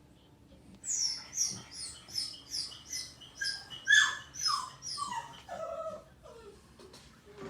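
Dog whining: a quick run of about a dozen short, high-pitched whines, each falling in pitch, starting about a second in. The last few are lower and fainter.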